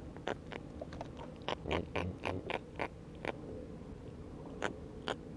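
A series of sharp, irregular clicks and knocks, densest in the first half, with two more near the end.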